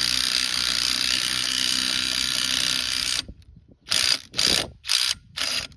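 Cordless impact wrench hammering on a lug nut, drawing a new press-in wheel stud into the wheel hub. It runs steadily for about three seconds, stops, then is triggered in four short bursts as the stud seats.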